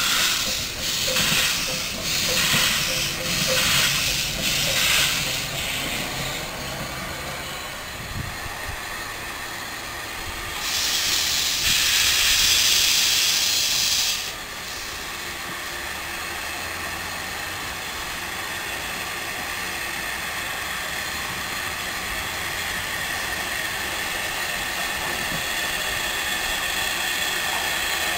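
Small steam tank locomotive working slowly: its exhaust chuffs about once every three-quarters of a second for the first several seconds. Midway there is a loud hiss of steam lasting about three seconds that cuts off suddenly, followed by a quieter, steady sound.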